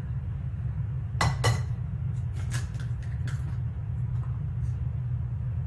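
Eggs being cracked against a mixing bowl: several light, sharp taps and clinks, over a steady low hum.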